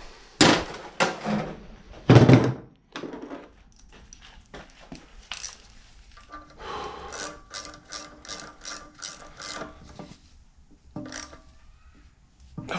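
Hand tools knocking and clanking on a mower's blower fan assembly, loudest in the first two and a half seconds, then a run of light clicks at about three a second.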